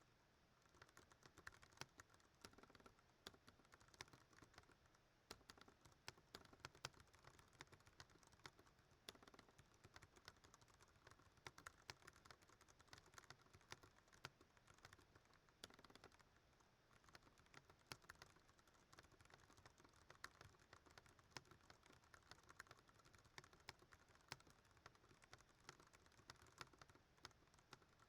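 Ducky One 2 Mini mechanical keyboard with Cherry MX Brown switches being typed on fast and without pause: a dense, continuous stream of key clacks.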